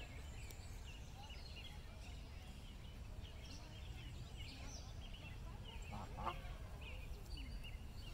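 Birds calling outdoors: many short high chirps throughout, and one louder, lower call about six seconds in.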